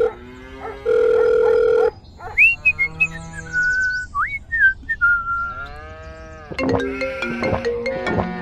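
A phone's ringing tone: a steady electronic beep of about a second. It is followed by cartoon sound effects, sliding whistles that swoop up and down, then comic music.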